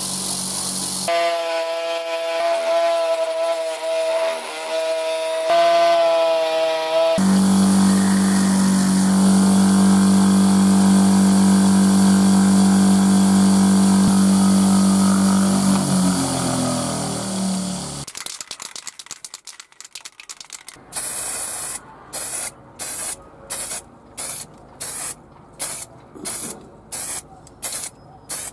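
Toya bench grinder running a wire wheel, ringing as metal drill parts are pressed against it. The motor then winds down with its pitch falling. After a short pause come a string of short hisses, about one a second, from an aerosol spray paint can.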